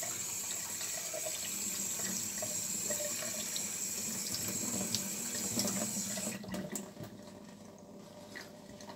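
Tap water running steadily into a stainless steel sink as soapy hands are rinsed under the stream; the tap is shut off about six seconds in and the running water stops suddenly.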